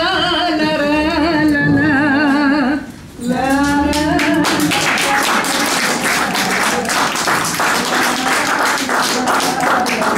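A woman's singing voice with strong vibrato holds a short song phrase, breaks off briefly, then sings a second shorter phrase. About four and a half seconds in, the audience starts applauding, and the clapping continues.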